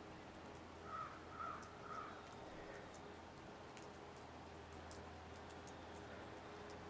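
A bird outdoors giving three short calls about half a second apart, about a second in, over a faint steady low hum.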